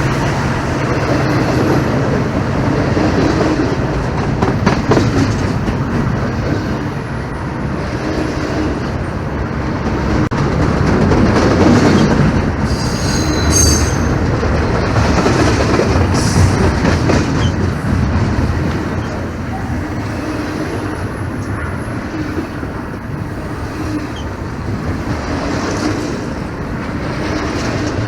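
Norfolk Southern freight train's cars rolling past, a continuous rumble with wheels clacking over the rails. A brief high wheel squeal rises about halfway through.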